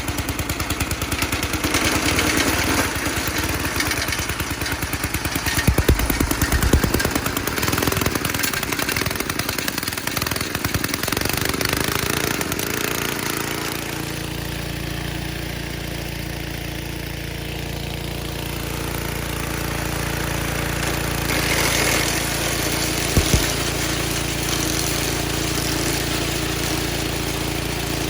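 Gasoline engine of a wood chipper running. Its sound changes about halfway through, settling into a steadier, even note. Two short knocks come near the end.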